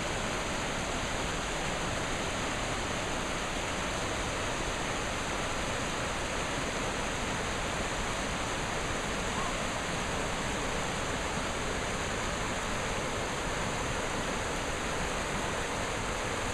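Rushing water of a forest creek and waterfall: a steady, even noise without a break.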